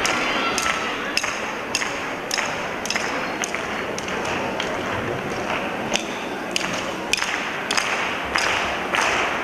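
Batucada percussion keeping a steady beat of sharp, ringing metallic strikes, about two a second, over a constant murmur from the crowd.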